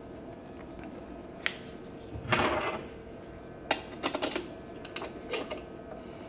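Spark plug wrench clicking and scraping on the cleaned spark plug as it is seated and tightened into a suitcase-type generator's engine: a few scattered metal clicks, with a short scraping rattle about two and a half seconds in.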